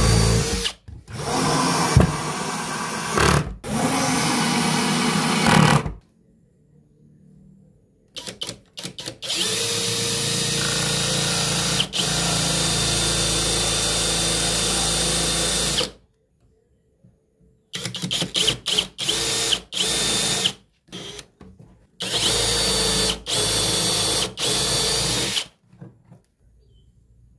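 Dong Cheng cordless drill running in several long bursts as it bores into plywood and a wooden block, with a run of short trigger blips between them.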